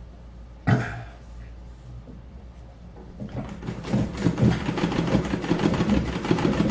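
Montgomery Ward Signature series sewing machine, driven by its foot treadle rather than its motor, stitching free-motion embroidery in a fast, even run of needle strokes that starts about three seconds in. A single thump comes about a second in.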